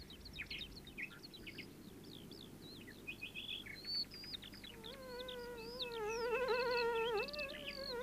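Birdsong sound effects: a busy mix of quick chirps, trills and short whistled glides. About five seconds in, a louder wavering, humming tone joins the chirping.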